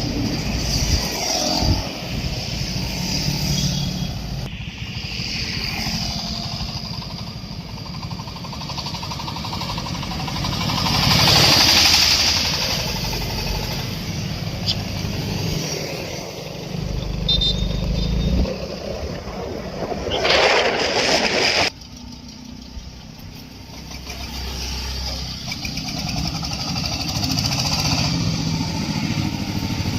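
Engine-driven corn sheller for unhusked ears, powered by a 26 HP engine, running steadily. There are two louder spells of rushing noise about a third and two-thirds of the way through, and the level drops suddenly just after the second.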